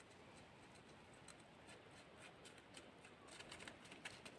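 Near silence: faint outdoor ambience with scattered soft clicks that become a little more frequent and louder near the end.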